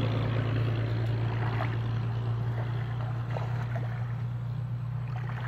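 A small engine running steadily with a low, unchanging hum, with a few faint bird chirps over it.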